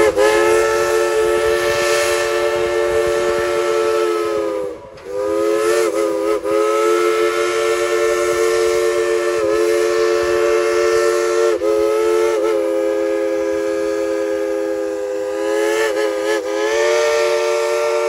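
Steam locomotive whistle on former White Pass & Yukon 192 blowing a chord of several notes at once: one long blast of about five seconds, a brief break, then a second blast held for about thirteen seconds that wavers briefly a few times.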